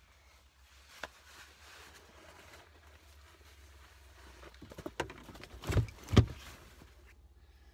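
Handling and rustling noises, then a cluster of knocks ending in two loud thumps a little over halfway through, over a faint steady low hum.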